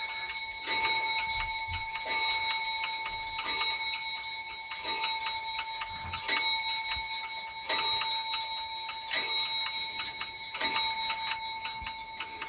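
Wall clock striking: the hammer hits the gong rod eight times, about one strike every second and a half, and each strike rings on with a bell-like tone until the next.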